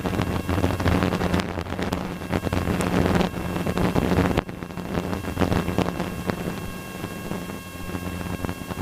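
Cessna 150's Continental O-200 four-cylinder engine and propeller at full throttle in a climb: a steady low drone with rushing wind noise.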